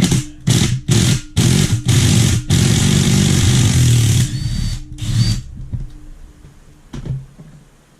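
Handheld power tool run in several short bursts, then held for about a second and a half, then one more short burst: backing out engine case bolts on a CRF450 motor.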